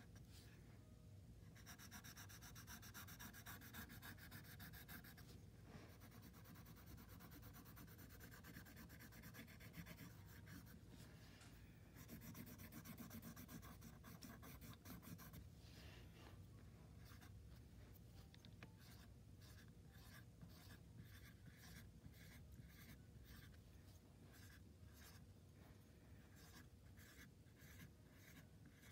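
Faint scratching of a wooden stick etching lines into a layer of oil pastel on paper. Quick, closely packed strokes for the first half, then slower, separate strokes.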